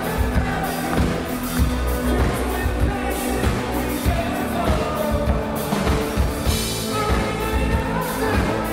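Live synth-pop band playing with drum kit, synthesizer keyboards and electric guitar under a steady beat, with a male lead vocal.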